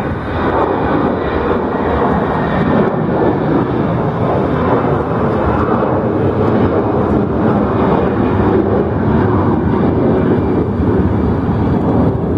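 Twin jet engines of an Airbus A320-family airliner climbing out just after takeoff, a loud steady rushing noise at climb power.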